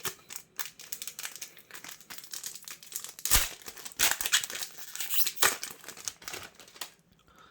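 Yu-Gi-Oh! booster pack's foil wrapper being crinkled and torn open by hand: a run of irregular crackles and rustles that dies away about half a second before the end.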